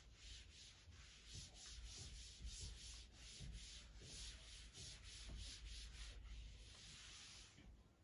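Faint scratching of handwriting, quick strokes of a pen on a writing surface at about three a second, stopping shortly before the end.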